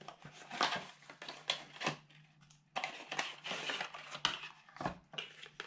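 Small cardboard box being opened by hand: a run of short scrapes and rustles as the flaps come free, then a denser scraping, crackling stretch about three seconds in as the card insert is slid out of its sleeve.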